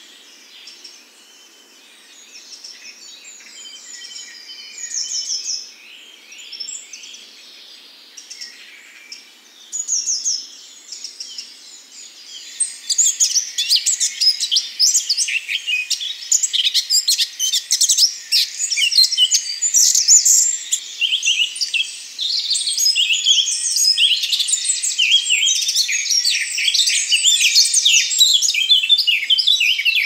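Birdsong: scattered, quieter song at first, then about twelve seconds in a close male Eurasian blackcap starts a loud, rapid warbling song of quick varied notes that runs on.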